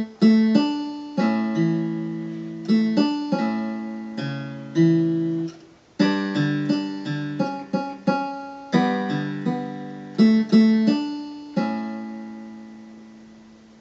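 Digital keyboard set to a steel-string acoustic guitar voice, playing a slow pattern of single notes and chords that each sound like a plucked string and die away. It pauses briefly about halfway through, then ends on a held chord that rings and fades.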